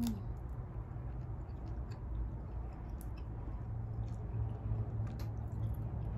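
Close-up eating sounds: chewing with scattered small crackling clicks as the shell of a cooked shrimp is peeled by hand, over a low steady hum.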